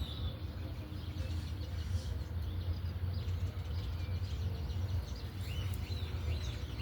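Birds chirping now and then, a few short calls near the end, over a steady low rumble of outdoor background noise.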